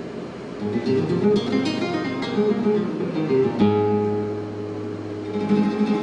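Solo classical guitar with plucked notes. A quick run of single notes leads to a bass note and chord struck about three and a half seconds in and left ringing, then more plucked notes near the end.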